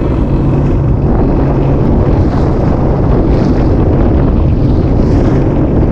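Sea-Doo jet ski running under way on choppy sea, its engine drone mixed with heavy wind buffeting on the microphone and rushing water.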